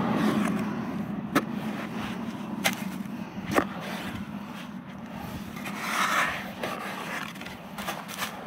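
Metal-bladed spade (siam) striking and scraping hard, dry paddy soil while digging out a rice-field crab burrow: a few sharp strikes spaced about a second apart, then scraping and rustling of soil and straw, over a low steady hum.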